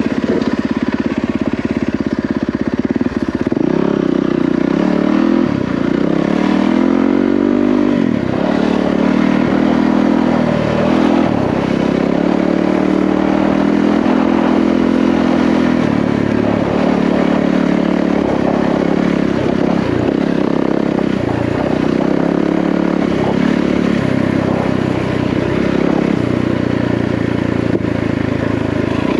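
Yamaha WR450F dirt bike's single-cylinder four-stroke engine running while riding, the revs rising and falling several times in the first half, then holding steadier.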